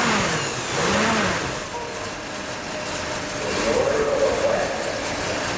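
1960 Buick Electra 225's 401 cubic-inch Nailhead V8 (Wildcat 445) just after starting: the revs rise and fall twice in the first second and a half, then it settles into an idle. It is running on a choke that still needs adjusting, and the idle lopes.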